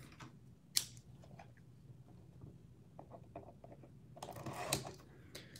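Hands opening a sealed cardboard trading-card box: a sharp click about a second in, a few light taps, then a rustle of wrapping and cardboard near the end.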